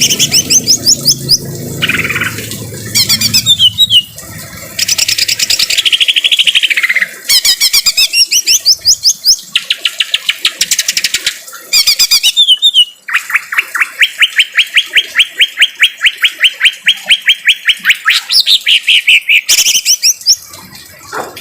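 Cucak ijo (a Chloropsis leafbird) singing loud, harsh song phrases: fast runs of repeated rattling notes, each phrase a second to several seconds long, with short breaks. One long even run lasts several seconds in the middle.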